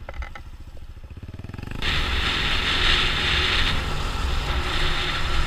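Sinnis Apache 125cc motorcycle engine running with an even pulsing beat, then, about two seconds in, engine and rushing noise get much louder as the bike gets moving, and stay loud.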